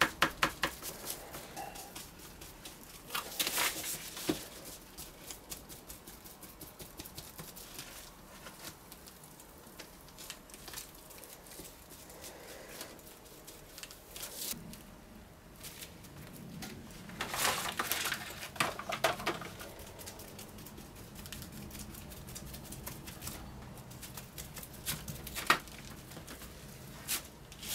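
Paintbrush dabbing polyester resin into chopped strand fibreglass mat wrapped around a polystyrene block: a quick patter of many small soft taps. A few louder rustling, crinkling spells come from the wet mat being pressed and wrapped by gloved hands, about three seconds in, in the second half, and near the end.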